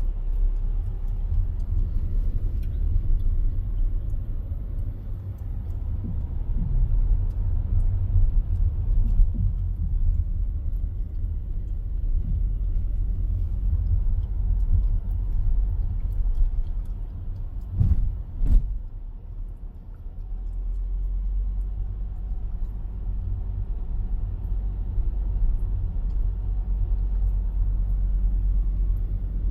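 A car driving, heard as a steady low rumble of road and engine noise, with two sharp knocks in quick succession about two-thirds of the way through.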